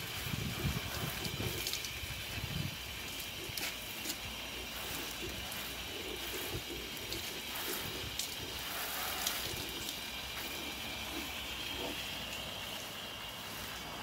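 Water spraying from a garden-hose nozzle onto potted plants and their leaves, a steady hiss of spray, with some low rumbling in the first few seconds.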